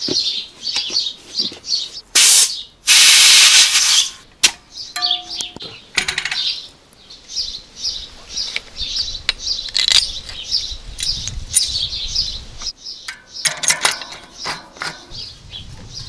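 Small birds chirping over and over, with a loud hiss about two seconds in that lasts a little over a second, plus a few scattered clicks and knocks.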